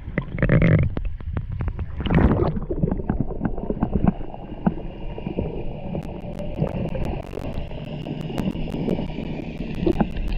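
Underwater sound picked up by a submerged camera in a river: a steady low rumble with gurgling, two louder bubbly rushes about half a second and two seconds in, and scattered sharp clicks that come thicker in the second half.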